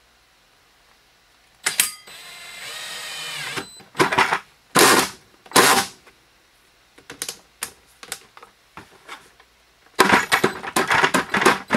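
Drill with a 3¼-inch hole saw cutting a hole through the side of a plastic 5-gallon bucket. The drill starts about two seconds in with a whine rising in pitch, then runs in a few short bursts as the saw bites into the plastic, and the cutting gets steady and busy near the end.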